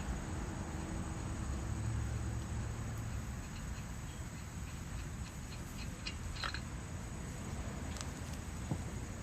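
Faint light clicks and a metallic clink from a wrench and lug nuts as the lug nuts are taken off a car wheel, over a steady low background rumble.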